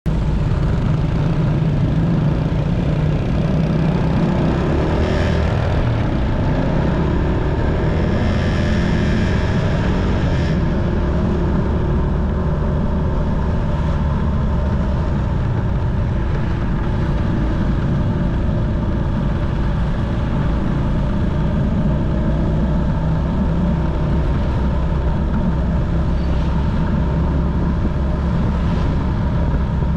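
Motorcycle engine running while riding along a street, with wind rushing over the action camera's microphone as a steady low noise.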